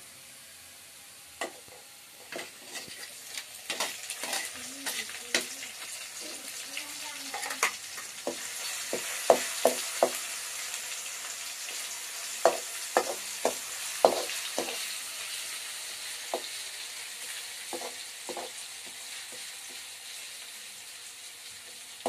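Garlic-ginger paste sizzling in hot ghee with browned onions in a metal karahi, while a slotted metal spoon stirs and knocks against the pan. The sizzle swells a few seconds in and eases off toward the end.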